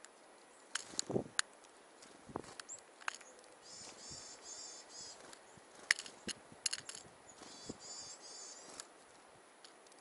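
Small songbirds of the tit family calling: two runs of rapid, wavering high notes, one in the middle and one later. Around them, sharp clicks and taps as varied tits land on and peck seed from a small metal tin held in a gloved hand.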